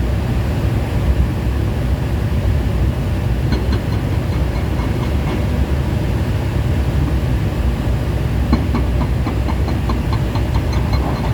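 Heavy excavator's diesel engine running with a steady low rumble. Twice, a few seconds in and again later, there is a run of quick light knocks, about four or five a second, from the machine working against the stack's concrete base.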